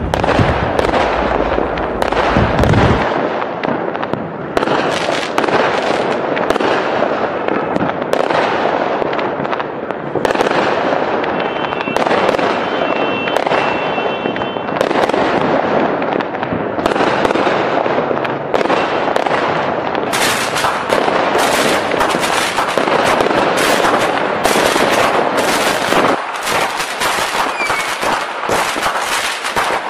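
Fireworks display: aerial shells bursting in a dense, continuous run of closely spaced bangs, with the bangs growing sharper about two-thirds of the way through.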